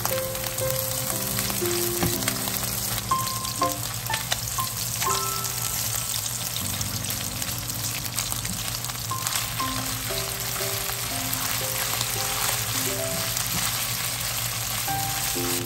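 Sliced garlic and cooked ground pork sizzling steadily in oil in a nonstick wok, with a few short scrapes and clicks of a spatula stirring them. A simple background melody plays throughout.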